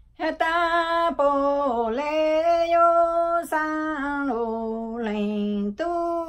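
A woman singing lug txaj, Hmong chanted poetry, unaccompanied: one voice holding long notes joined by sliding, wavering turns, beginning a moment in after a short breath pause.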